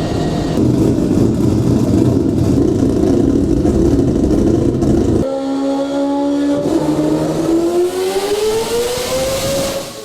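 Turbocharged Mazda RX-7 rotary engine running loud on a chassis dyno. For the first five seconds it runs rough, then it switches abruptly to a clean steady note that climbs smoothly in pitch as the revs rise under a pull, with a hiss building near the end.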